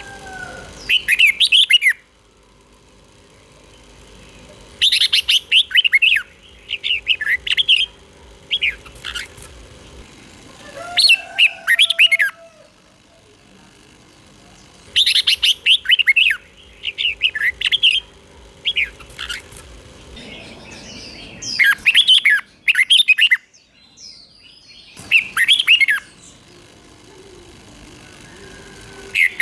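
Red-whiskered bulbul singing: short bursts of quick, warbling, whistled notes, repeated every few seconds with pauses between.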